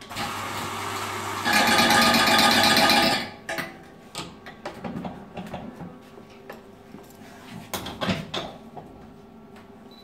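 An electric coffee grinder's motor runs for about three seconds, louder over its last second and a half as it grinds a dose for an espresso shot. Light clicks and knocks of the espresso portafilter being handled follow.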